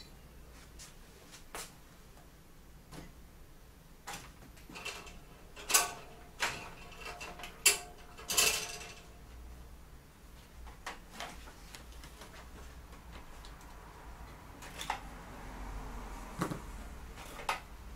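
Scattered clicks and knocks of cables being unplugged from a hard drive and handled inside an open desktop PC case, with a loud cluster of sharp clicks around the middle and a few more near the end.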